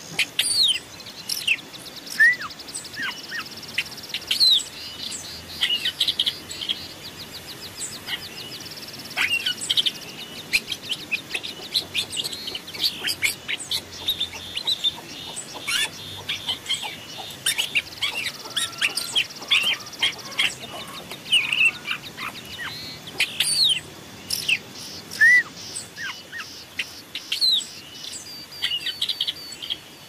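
Small songbirds calling and singing: a dense run of short, sharp, high chirps and whistles, with two long rapid high trills. This is masteran, a recording played to caged songbirds to train their song.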